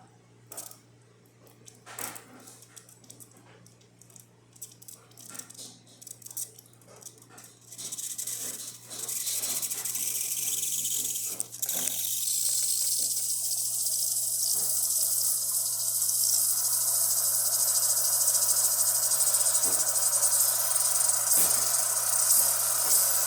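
Breville Barista espresso machine's steam wand heating up: faint crackling and spitting for several seconds, then a hiss of steam starts about eight seconds in and settles into a loud steady hiss from about twelve seconds, over a low steady hum.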